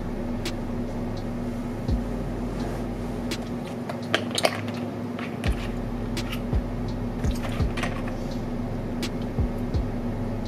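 A 30-odd-year-old air conditioner running with a steady hum throughout. Over it come scattered clicks and crinkles of a plastic water bottle being handled and its cap unscrewed, busiest about four seconds in.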